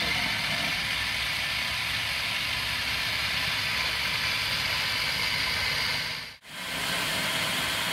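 Philips food processor running steadily as its blade purées soft roasted tomatoes, peppers and eggplant into a sauce. The sound breaks off briefly about six seconds in, then resumes.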